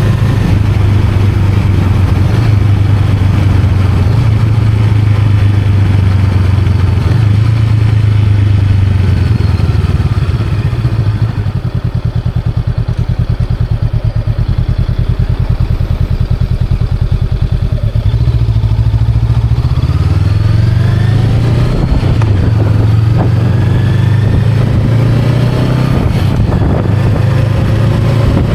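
Honda Rebel 500's parallel-twin engine running steadily under way, dropping to a lower, lumpier note for several seconds in the middle as the throttle comes off, then rising in pitch again as the bike accelerates.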